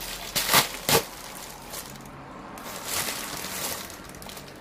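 Plastic shipping mailer and its packaging being torn open and crinkled by hand: sharp rips about half a second and a second in, then a softer rustle.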